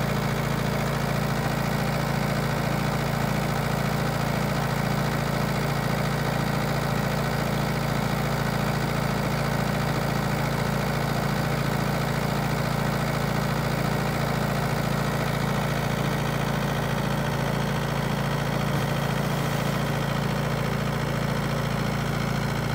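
Engine running steadily at a constant speed with an even low throb, powering a pump that drives water out through a large pipe.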